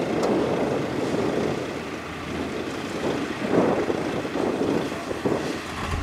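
Dump truck engine running while its raised tipper bed unloads dirt, with a steady rushing noise and a couple of louder surges partway through. Wind buffets the microphone.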